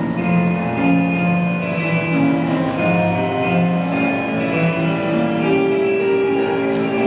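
Slow instrumental music: long held notes over a bass line that steps from note to note.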